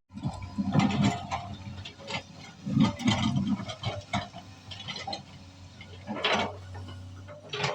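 Excavator at work: a steady low engine hum under irregular loud clanks and scrapes in clusters, about a second in, around three seconds and again near the end.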